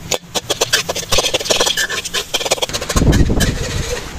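A spoon knocking and scraping against a metal cooking pot of boiled egg yolks, making a quick irregular run of clicks. A short low rumble comes about three seconds in.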